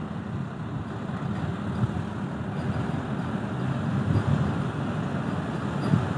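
D13E diesel locomotive hauling a loaded ballast train, a steady low engine and running rumble that grows slowly louder as the train approaches.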